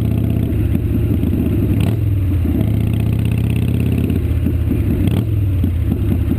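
Harley-Davidson V-twin motorcycle engine running steadily while the bike rides along the road.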